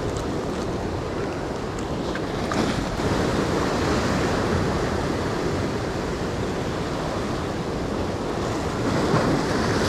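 Surf breaking and washing against jetty rocks, with wind buffeting the microphone; the wash swells louder about three seconds in and again near the end.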